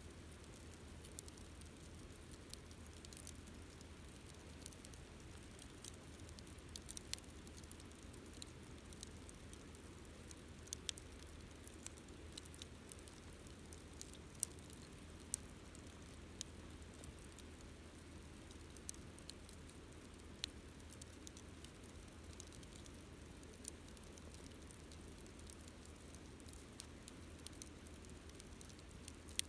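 Wood campfire burning quietly: a steady low hiss and rumble with scattered sharp crackles and pops at irregular moments, two louder pops about halfway through.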